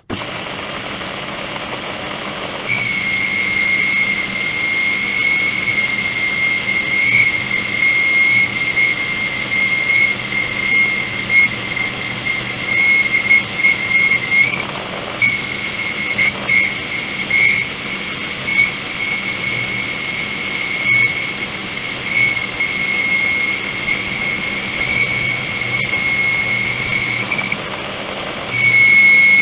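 Machine tool cutting metal, boring out a hole: the machine runs steadily, and about three seconds in a steady high-pitched whine sets in as the cutter bites. The whine breaks off briefly about halfway and again near the end, with scattered light clicks.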